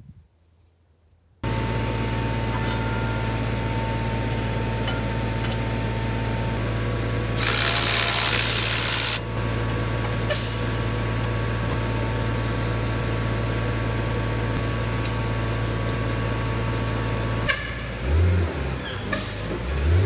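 SEM 652D wheel loader's diesel engine running steadily at idle. About seven and a half seconds in, a loud hiss of released air lasts nearly two seconds, typical of the machine's air brake system venting. Near the end the engine note turns uneven and pulsing.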